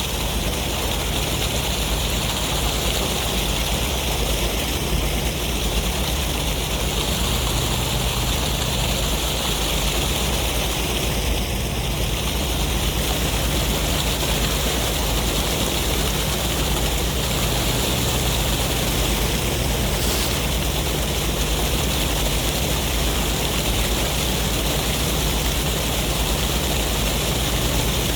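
Continuous roar of sea surf and wind, a steady wash of hiss over a low rumble, with no distinct breaking swells.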